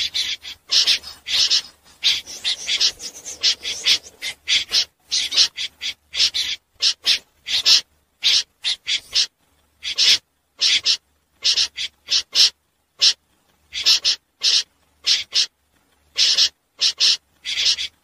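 Common snipe calling: short, harsh high notes repeated in quick runs, about three a second, broken by brief pauses.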